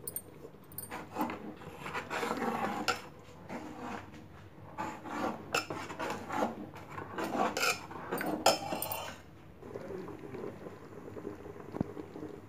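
A spoon stirring thick khichda porridge in an aluminium pressure-cooker pot, scraping against the pot in irregular strokes. It goes quieter for the last few seconds.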